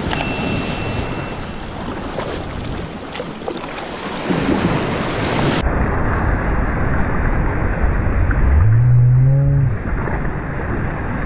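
Small surf breaking and rushing around a plastic pedal kayak's hull as it rides a wave into the shallows, with wind buffeting the microphone. About three-quarters of the way through, a loud low tone rises in pitch and holds for about a second.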